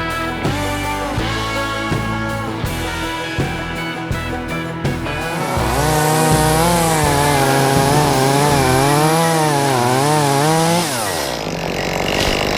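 Rock music with guitar, then about six seconds in a chainsaw runs at high revs, its pitch wavering up and down as it cuts wood, and drops off sharply about eleven seconds in.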